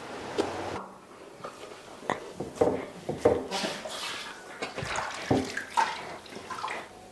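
Damp, crumbly artemisia dough being stirred and worked by hand, with irregular knocks and taps of a utensil and cleaver on the basin and counter.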